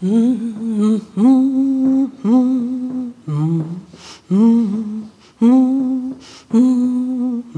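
A woman's voice humming a slow, wordless tune: about seven held notes, each a little under a second long with short breaks between, one of them lower than the rest.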